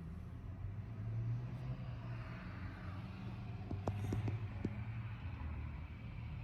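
Low steady rumble with a few light clicks a little past the middle.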